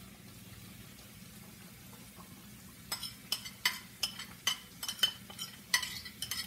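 A faint steady frying sizzle, then from about three seconds in a utensil scraping and knocking against a ceramic bowl, about twice a second, as sardines are scraped out of the bowl into a pot of sauce.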